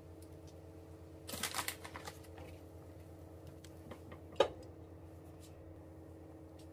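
A plastic zip-top bag crinkles and rustles for about a second as shredded cheese is taken from it and scattered, then a single sharp clink of cookware against the frying pan a few seconds later, over a steady low hum.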